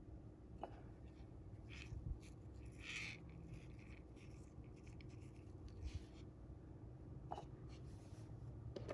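Faint scratchy rubbing of fingers handling monofilament fishing line at a knot, a few short rubs in the first half and two soft clicks near the end, over a low steady hum.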